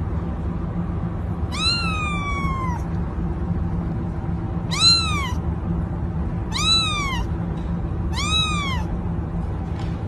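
A kitten meowing four times, high-pitched calls that rise and fall, the first one longer than the rest.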